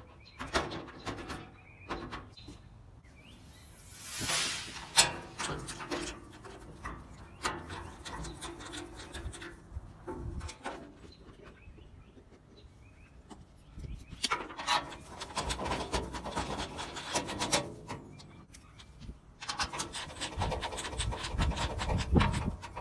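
Sheet-metal grill parts being handled and fitted together: rubbing and scraping with scattered clicks and knocks, and two longer stretches of dense rapid clicking and rasping later on.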